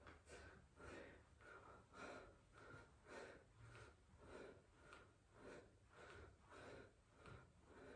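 Faint, hard breathing of a man exerting himself through flutter kicks, in quick regular breaths about two a second.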